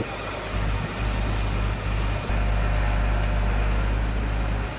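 Truck engine of a truck-mounted crane running steadily under load while the crane holds and swings a cabin-type pavilion on slings. The low rumble grows louder for a couple of seconds in the middle.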